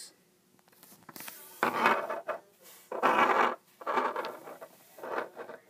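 Handling noise: several short bursts of rustling and rubbing as objects are moved about by hand.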